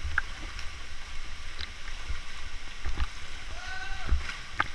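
River water sloshing and splashing around a camera held at the surface among swimmers, with a heavy low churning rumble of water against the microphone and scattered small knocks.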